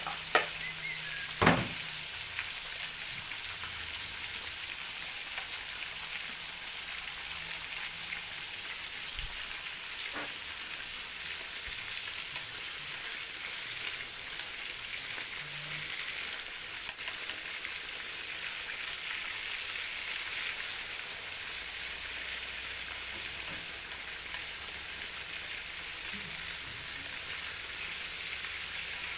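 Chicken pieces and garlic sizzling steadily in hot oil in a wok. A few sharp clicks cut through, the two loudest within the first couple of seconds.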